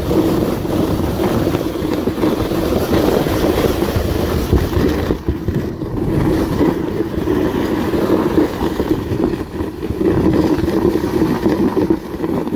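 Continuous rumbling rush of wind buffeting the phone's microphone, easing briefly about five seconds in.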